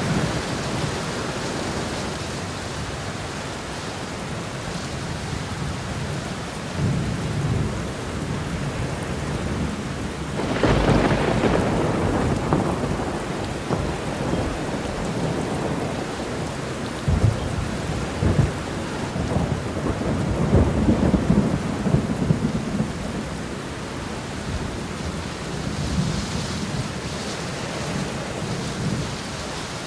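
Thunderstorm: steady rain with rolling thunder. A loud thunderclap comes about ten seconds in, and lower rumbles of thunder swell and fade after it.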